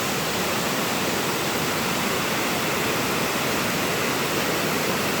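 Steady rushing of a waterfall, a continuous even wash of falling water.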